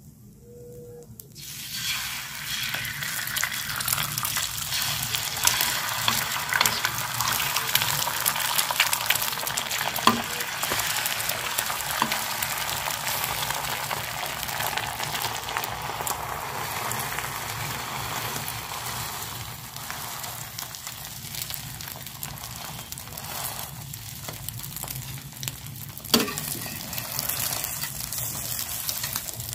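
Beaten eggs hitting a hot oiled tawa (flat griddle) start sizzling abruptly about a second in, then keep frying steadily. A few sharp metal clinks of a spatula on the griddle come now and then, the loudest near the end.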